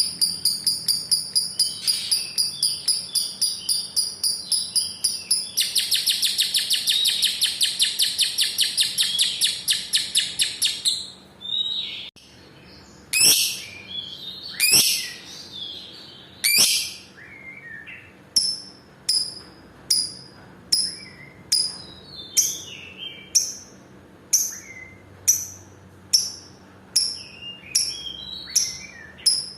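Lovebird's long ngekek: a fast, chattering trill of rapidly repeated high notes that grows denser about a fifth of the way in and breaks off a little over a third of the way through. After a short pause come a few sharp falling calls, then short chirps repeated a little under twice a second.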